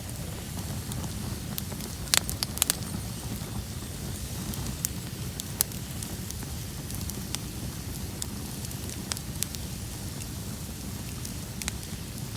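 Bonfire burning: a steady low rumble of flames with scattered sharp pops and crackles, several loud pops close together about two seconds in.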